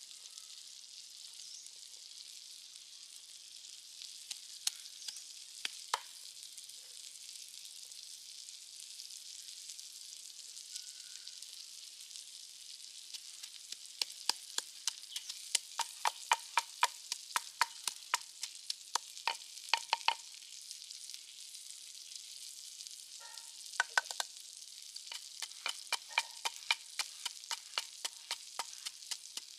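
Wooden pestle pounding in a wooden mortar, crushing garlic, chillies and salt for a seafood dipping sauce: a few scattered knocks at first, then two runs of quick dull knocks, about three a second, with a short pause between them. A steady high hiss runs underneath.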